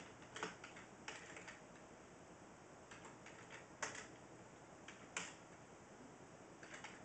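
Faint, irregular clicking of typing on a computer keyboard, in short runs, with two sharper single clicks about four and five seconds in.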